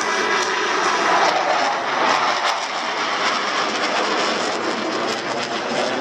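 Blue Angels F/A-18 Hornet jets passing overhead. The engine noise swells about a second or two in, then carries on with a crackling edge.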